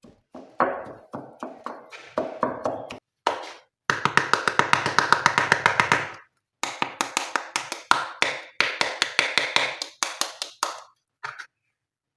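Glossy slime being squished and mixed by hand, giving quick runs of sticky clicking pops, several a second, in bursts with short breaks.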